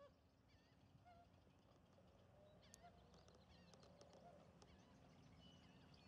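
Faint mixed calls of wetland birds: scattered short chirps, peeps and whistled notes over low steady background noise.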